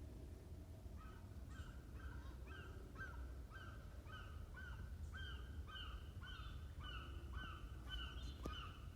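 A bird or small animal calling over and over, short clipped notes about two a second, starting about a second in and growing a little louder.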